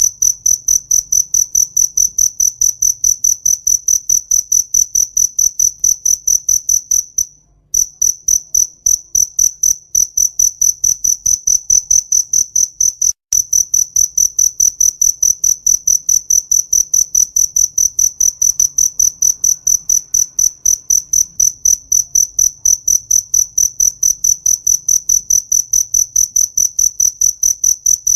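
Cricket chirping close by: a loud, high-pitched chirp repeated evenly, about four times a second, pausing briefly about seven and a half seconds in.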